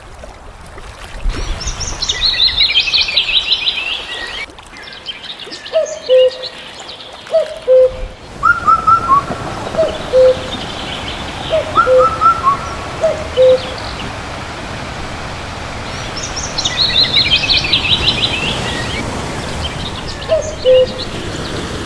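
Several birds calling: short low whistled notes repeated every second or two, a brief higher call a few times, and a fast twittering song that comes twice, about two seconds in and again about three quarters of the way through.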